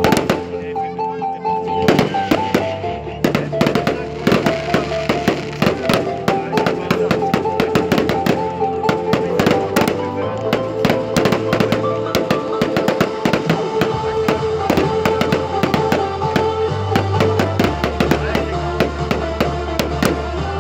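Fireworks going off in quick succession, many sharp bangs and crackles, with music of held notes and a stepping bass line playing alongside.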